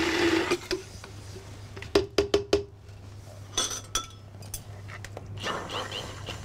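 Hand-held immersion blender running and cutting off about half a second in, with a short second burst about two seconds in. Then sharp clinks of a metal spoon and the blender's shaft against a plastic beaker and a small ceramic bowl, one of them ringing briefly near the middle.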